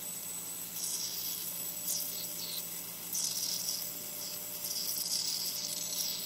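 Carbon dioxide escaping through the fermentation bung of a wine barrel of Chardonnay, in uneven hissing spurts starting about a second in: the sign of an active barrel fermentation. A faint steady hum runs underneath.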